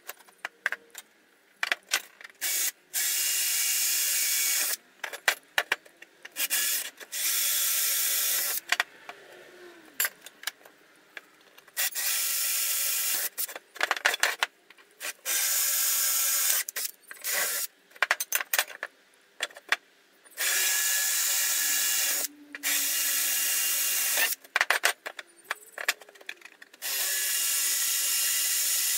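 Electric drill boring into the milling machine's motor rail, run in repeated bursts of one to two seconds, with small clicks and clatter between the bursts.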